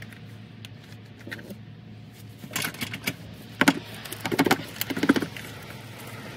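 Plastic connectors and vacuum-line fittings on a Honda S2000's intake being worked loose by hand, clicking and rattling in several short bursts from about two and a half seconds in.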